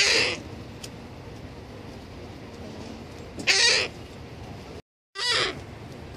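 Seagull calling three times in short, loud calls: one at the start, one about three and a half seconds in, and one about five seconds in, just after a brief dropout in the sound.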